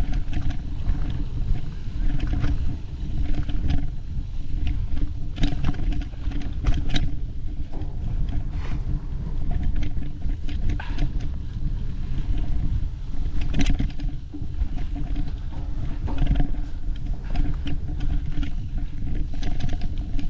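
Steady wind rumble on the microphone during a ride along rough singletrack, with scattered sharp clicks and rattles from the trail.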